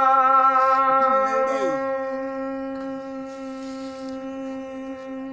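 Male voice singing a Gojri folk song, holding one long steady note at the end of a line that slowly softens. Another voice slides briefly down in pitch about a second in.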